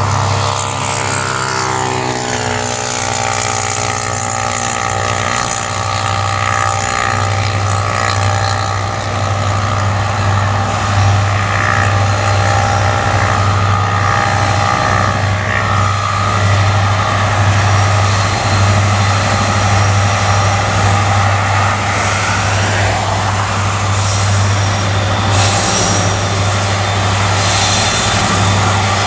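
Diesel-electric freight locomotive running under power as it approaches, a loud steady low engine drone with a whine above it. The whine drops in pitch in the first couple of seconds, holds steady, then rises again shortly before the end.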